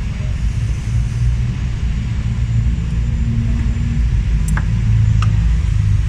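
Steady low rumble throughout, with two light, sharp metallic clicks about four and a half and five seconds in as a screwdriver takes the condenser off a points-type distributor.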